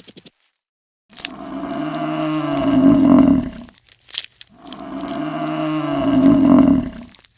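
A cow mooing: two long, drawn-out moos, each about two and a half seconds and growing louder towards its end.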